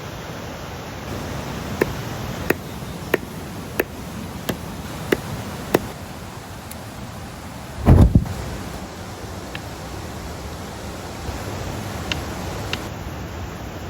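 Steady rushing of a waterfall. Over it come about seven sharp knocks, evenly spaced roughly two every three seconds, in the first half. A single loud thump follows about eight seconds in.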